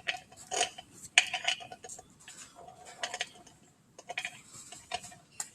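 Metal pieces clinking and clattering irregularly, a dozen or so light knocks, several with a short ring.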